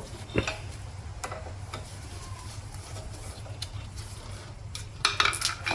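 Scattered light metallic clicks and taps of hand tools and brake parts being handled while the caliper hardware is unbolted, irregular and not a steady ratchet rhythm, over a steady low hum, with a short burst of clicks near the end.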